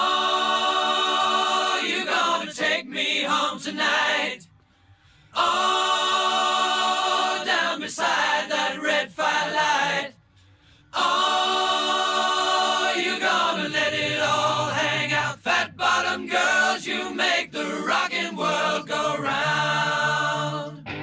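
Unaccompanied live singing with no band playing: long held sung notes, broken by two brief silences about four and a half and ten seconds in.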